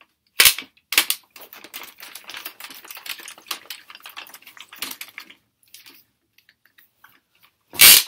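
Shotgun hot stick working a hot-line tap clamp loose on a thick copper stirrup: a couple of sharp metal clicks, then a few seconds of rapid small clicking and rattling, and one loud clack near the end.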